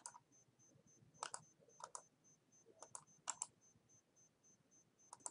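Quiet clicks of a computer mouse and keys, most of them in quick pairs, about six times over a few seconds, against near silence.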